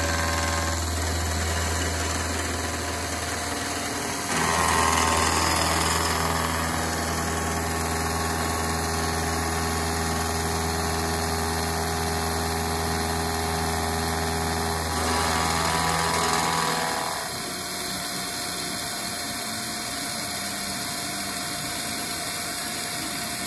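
Carbide-insert milling cutter (APKT-type inserts) on a Bridgeport-type knee mill, cutting a flat into a 4140 prehardened steel shaft at 50 thou per pass. It makes a steady machining hum with several held tones. It gets louder about four seconds in, and about seventeen seconds in the low hum drops away and the sound eases.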